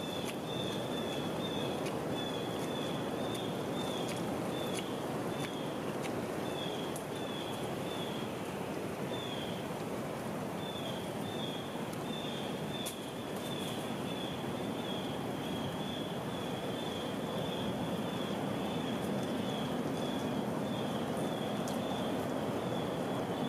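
Steady rushing outdoor background noise in the woods, with a small bird repeating short, high chirps in runs of a few a second throughout. A few faint clicks are scattered in.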